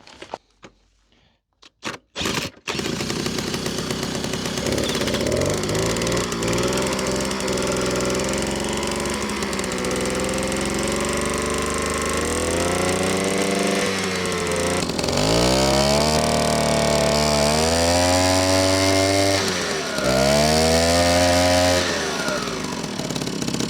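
An old two-stroke moped engine catches about two and a half seconds in, after a few clicks, and keeps running. It is revved up and down several times, with the longest rises about two-thirds of the way through and near the end: the engine is starting again on a fresh spark plug after standing unused for years.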